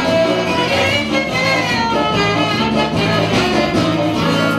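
Instrumental music playing steadily, with many held notes changing pitch throughout.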